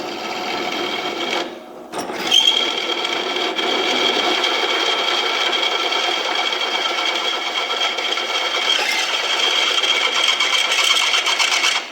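Drill press motor running while the bit cuts through steel flat bar, a steady whine. It drops out briefly about one and a half seconds in, picks up again about two seconds in, and stops near the end.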